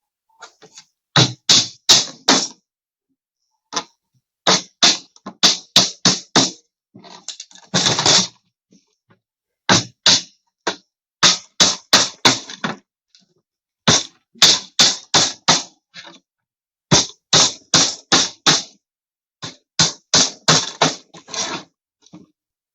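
Hammer driving nails into plywood: quick runs of four to six sharp blows, each run followed by a short pause, repeated about eight times as a plywood cage box is nailed together.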